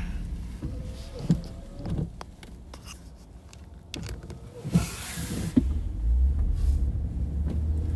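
Car engine and road rumble heard inside the cabin while driving, with several clicks and knocks as a phone is adjusted in its mount. There is a brief swish about five seconds in, and the rumble grows louder near the end.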